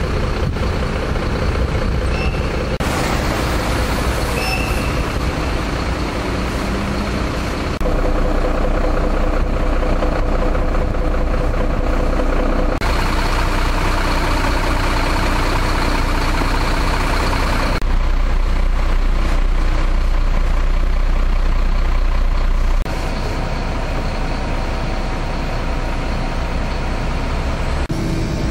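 Heavy vehicles running: a diesel truck engine and trams on the track, a loud steady rumble whose level and character change abruptly every few seconds.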